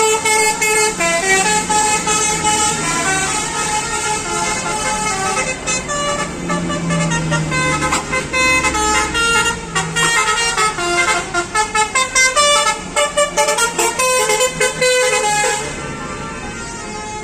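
Bus telolet horn, a Basuri multi-tone horn, playing a fast tune of stepping notes, some of them short choppy toots, that stops near the end. A low bus engine hum runs underneath.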